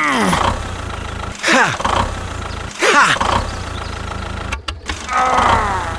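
Mini tractor engine sound: a steady low running hum with a quick downward-sliding whine about every second and a half, four in all, as the tractor strains while stuck in sand.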